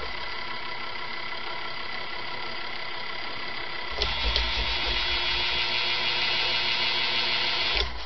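K55 stack motor of a Casablanca Veranda ceiling fan running with a steady hum and a little bearing noise, 'wet bearing noise' from its freshly oiled bearings. About halfway there is a click, after which it runs louder.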